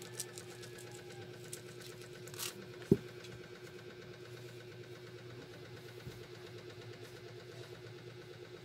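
Pepper shaker shaken over chicken wings with a few light ticks, then a single sharp knock about three seconds in as it is set down on the table. Under it runs a steady low hum of a small motor.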